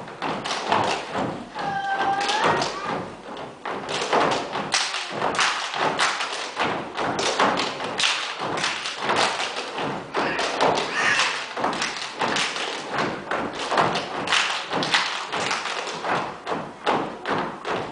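A troupe of gumboot dancers stamping and slapping their rubber boots in rhythm on a wooden stage floor: a fast, uneven run of sharp thuds and slaps.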